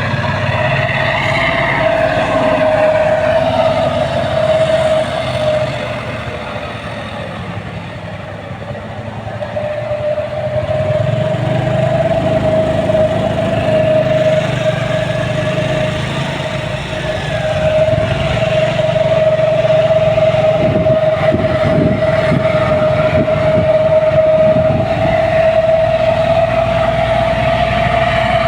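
Heavy machinery running continuously: a low engine rumble under a steady high whine. It eases off for a few seconds about a quarter of the way through, then builds back up.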